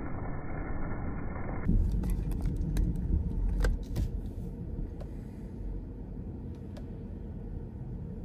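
Hail hitting a vehicle, heard from inside the car: a dense, steady clatter of hailstones on the roof and glass, then after a cut a low rumble with scattered sharp hailstone impacts that thin out after a few seconds.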